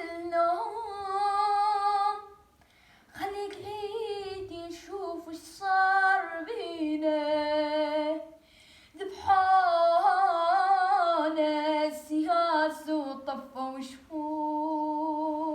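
A single voice singing an Arabic song unaccompanied, in long drawn-out phrases with vibrato and two brief breaks for breath.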